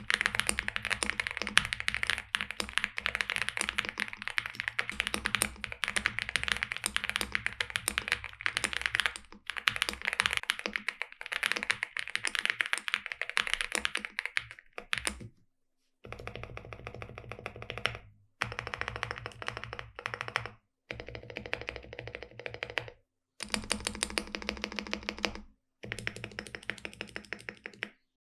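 Typing on a NuPhy Gem80 mechanical keyboard with NuPhy x Gateron Mint linear switches, an FR4 plate, silicone bean mount, all foams and PBT keycaps. A fast, continuous clatter of keystrokes runs for about fifteen seconds, then comes in shorter bursts split by brief silences.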